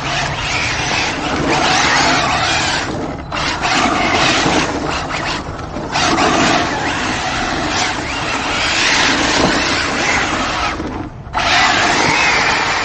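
Brushless 6S RC drift truck running hard on asphalt, its tires skidding and scrubbing, in long surges of noise that break off sharply three times.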